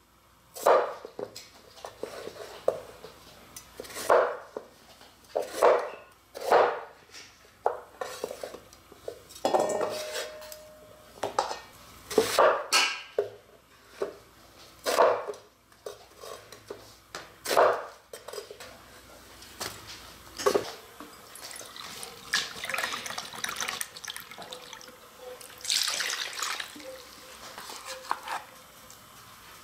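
Chef's knife slicing potatoes and an onion on a wooden cutting board: a dozen or so sharp chops against the board, one every second or two. From about twenty seconds in, softer scraping and rustling as seasonings go into a stainless steel bowl of chicken drumsticks.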